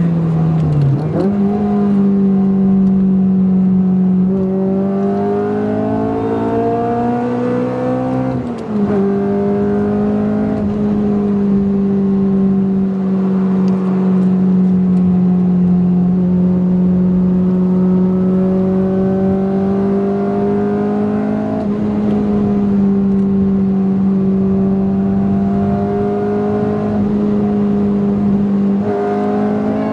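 2008 Honda Civic Si's tuned 2.0-litre four-cylinder, with catless header and cat-back exhaust, running hard, heard from inside the cabin. Its note drops sharply and climbs back at about one second and again at about eight and a half seconds, then holds fairly steady with slow rises and falls.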